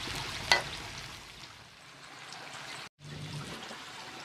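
Long beans sizzling in a metal wok over a wood fire, a steady hiss, with one sharp clink of the metal spatula against the wok about half a second in.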